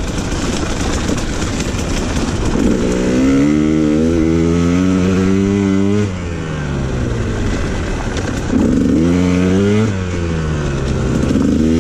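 The single-cylinder two-stroke engine of a 2019 KTM 150 XC-W, fitted with an FMF Turbine Core 2 silencer, revving up and easing off as the bike is ridden. The pitch climbs and holds, falls away about six seconds in, climbs again briefly and falls, then starts rising once more near the end. The rider doesn't think it is running quite right.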